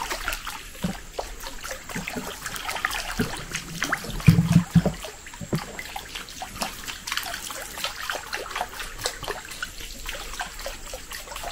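Water trickling and dripping close by, with many small scattered ticks and splashes and one dull low knock about four seconds in.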